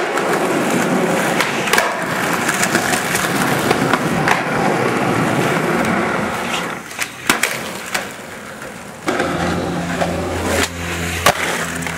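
Skateboard wheels rolling on concrete, with several sharp clacks of the board popping and landing. Over the last few seconds a low steady hum sounds under it.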